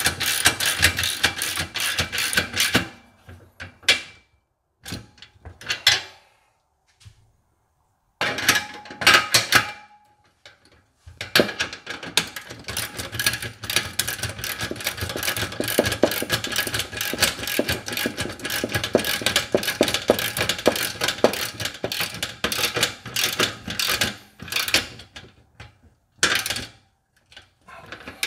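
Socket ratchet clicking rapidly as nuts are tightened on a folding loading ramp's bolts, in long runs broken by short pauses, the longest a few seconds in.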